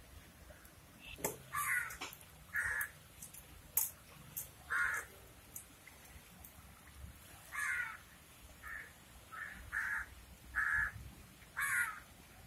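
A bird calling over and over: about ten short calls, each under half a second, spaced irregularly.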